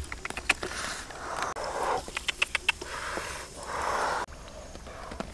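Eggs clicking against one another and against wicker as they are handled and set into a woven basket, with short swishes of muddy water as they are lifted out.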